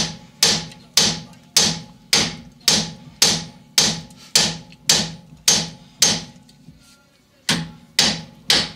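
Steady hammer blows on steel at a Mk3 Jetta's front steering knuckle, hammering the rusted outer tie rod end to shock its tapered joint loose. About two strikes a second, each ringing briefly. They pause for about a second and a half after six seconds, then resume.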